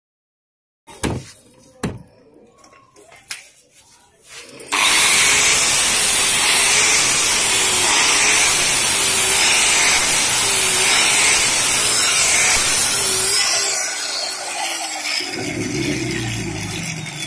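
A few light knocks as a used hook-and-loop sanding disc is fitted to an angle grinder's backing pad. About five seconds in, the grinder starts suddenly and runs loud and steady for about nine seconds as the disc sands old paint off a wooden door panel. It is then switched off and winds down with a falling whine.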